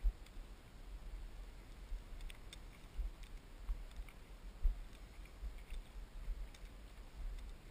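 Faint low rumble and irregular soft thumps on the microphone of a body-worn camera, with a few faint ticks scattered through.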